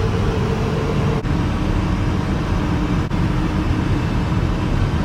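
Motor vehicle driving: a steady low engine and road rumble, with a brief dip in level about a second in and again about three seconds in.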